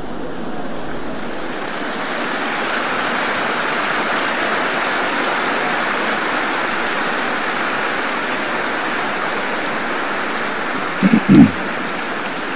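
A large audience applauding steadily, building a little after the start and then holding. Near the end a short voice rises briefly above the clapping.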